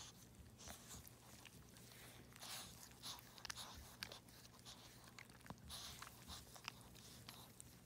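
Faint, irregular wet clicks and smacks of a mother dog licking at her newborn puppy, with soft rustling of fur and blanket.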